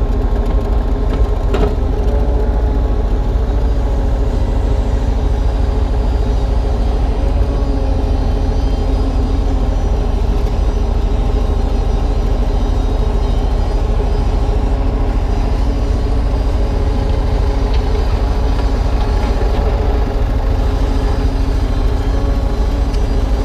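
Kubota U35-3 mini excavator's diesel engine running steadily, with a single knock about a second and a half in.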